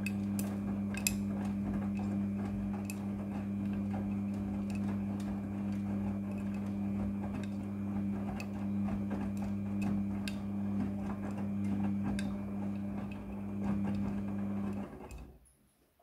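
Midea front-loading washing machine's drum turning a wet load of laundry, with a steady motor hum and scattered light clicks. About fifteen seconds in, the motor stops and the drum comes to rest, marking a pause in the wash's tumbling action.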